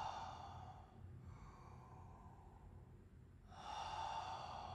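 A man breathing deeply in and out through the mouth. One long breath fades out in the first second, and the next starts about three and a half seconds in.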